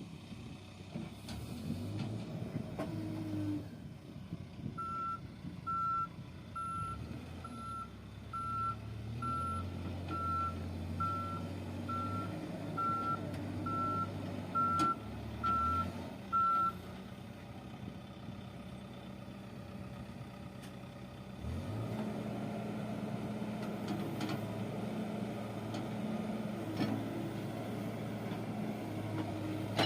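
Reversing alarm on a construction machine beeping a little more than once a second for about twelve seconds, over the steady running of its engine. About two-thirds of the way through, the engine gets louder and stays so.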